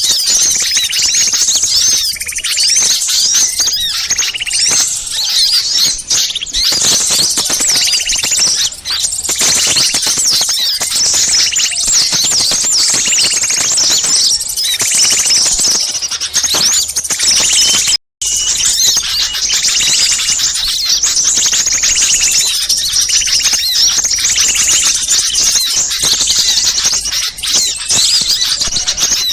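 A mixed crowd of small songbirds chirping and twittering all at once, a dense unbroken chatter of quick high calls and trills. It is an agitated small-bird chorus of the kind used to lure wild birds. The sound cuts out for a moment about 18 seconds in.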